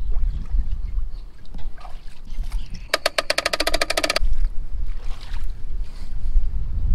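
Bare feet wading and splashing through shallow water beside a boat trailer, over a steady low rumble. Around the middle, a rapid clicking rattle of about fifteen clicks a second runs for just over a second.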